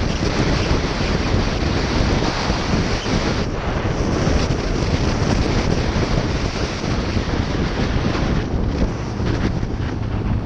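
Heavy wind buffeting a GoPro Session camera's microphone on a Yamaha FZ-09 motorcycle ridden at street speed: a dense, steady rumble that covers the engine.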